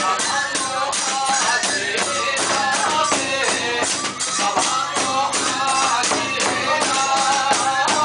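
Iwami kagura accompaniment: small hand cymbals clashing in a fast, even beat, about five strikes a second, with a wavering bamboo flute melody above and a taiko drum beneath.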